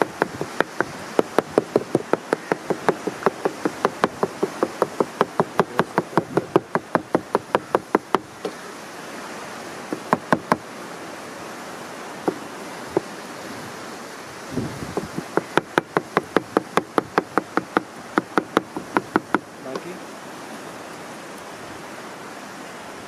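A knife chopping quickly on a cutting board: even knocks about five a second in two long runs, with a few single strokes between them, over a steady background hiss.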